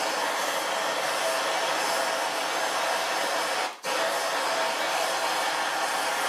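Heat gun blowing with a steady rushing hiss and a steady whine, heating Loctite-locked Torx screws on a Polaris RZR XP 1000 secondary clutch so they will break loose. It cuts out for a moment about four seconds in.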